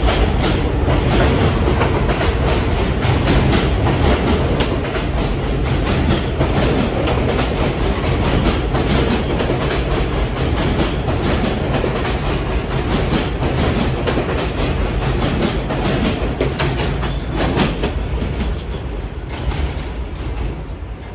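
New York City subway train running by, its wheels clacking over rail joints in a long run of sharp clicks over a steady rumble. The noise eases off near the end.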